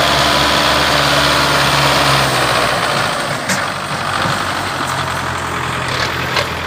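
Belarus 510 tractor's diesel engine running close by as it hauls a loaded sugarcane trolley past, the engine sound fading after about two seconds as the tractor moves on.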